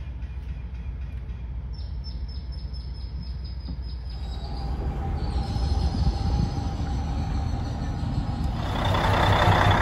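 A shrimp boat's diesel engine running with a steady low rumble. It grows louder in the second half, and a broad rushing noise joins it near the end.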